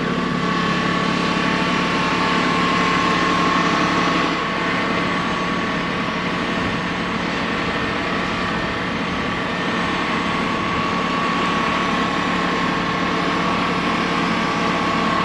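Farm tractor engine running steadily, with a constant hum and a steady higher whine over it.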